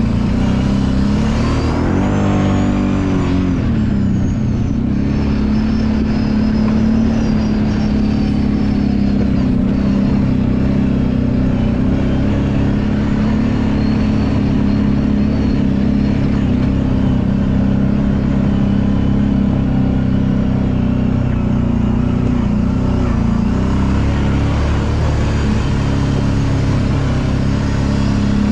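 Kawasaki Brute Force 750 ATV's V-twin engine running steadily while riding, with a brief rise and fall in revs a couple of seconds in.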